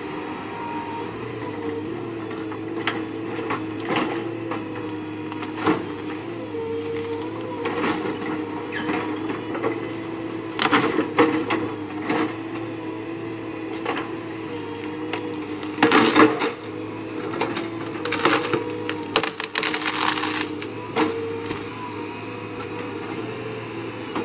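A Caterpillar tracked excavator's diesel engine and hydraulics running steadily, the engine note shifting up and down, while its bucket snaps and splinters tree limbs and trunks in a series of sharp wooden cracks, the loudest about 16 seconds in.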